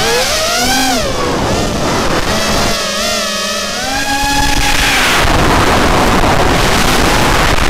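Electric motors and propellers of an FPV racing quadcopter whining, the pitch sweeping up and down with the throttle. From about five seconds in, a louder rushing noise sits over a steadier whine.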